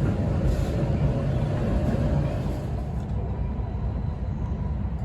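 Interior running sound of an E6 series Shinkansen: a steady low rumble from the running gear and car body, with a faint steady tone above it. The higher hiss drops away about three seconds in.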